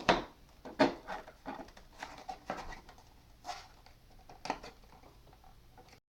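Irregular sharp clicks and knocks of hard plastic being handled, as a GoPro HERO5 and its mount are worked at to get them open, with a few louder clicks spread through.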